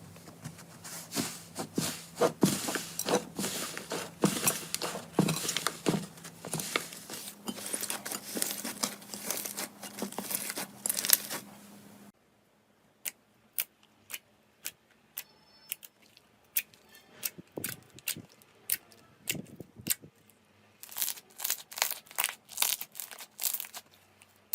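Slime being squeezed and pressed by hand, crackling and popping densely. About halfway through it changes to sparser single pops and clicks, which grow denser again near the end.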